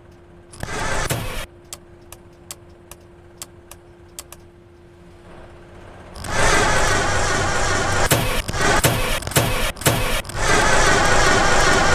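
A car being started: a short burst, then a run of sharp clicks. From about six seconds in comes a loud continuous engine sound, with a few brief breaks around eight to ten seconds, then steady again.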